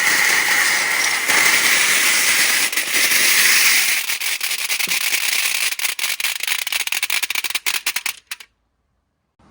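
Marbles rolling and clattering down a four-tier rainbow-slope marble run: a dense rolling rattle that thins about four seconds in to scattered clicks, stopping shortly after eight seconds in.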